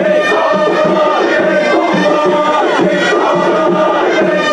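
Procession music with group chanting over a crowd: a melody of long held notes that slide between pitches, steady in loudness.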